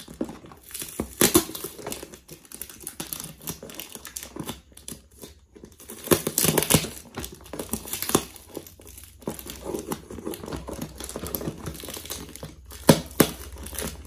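Packing tape and cardboard crackling and tearing as a taped box is ripped open by hand, in irregular bursts, loudest about a second in, around six to seven seconds in, and again near the end.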